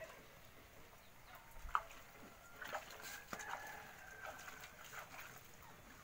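Faint, scattered bird calls and clucks: one sharp call a little under two seconds in, then a cluster of short calls with one longer held note around the middle.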